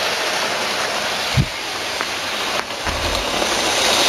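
Model train running along the track close by: a steady hiss-like running noise of motor and wheels. A low bump comes about a second and a half in, and a short low rumble about three seconds in.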